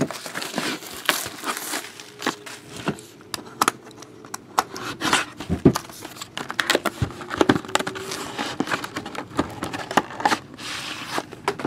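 Cardboard box and plastic packaging being handled and opened: crinkling and rustling, with scrapes and many small knocks throughout.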